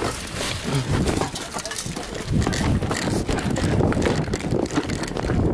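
Quick, irregular footsteps of someone running, with the handheld camera and clothing jostling, and a short voice sound about a second in.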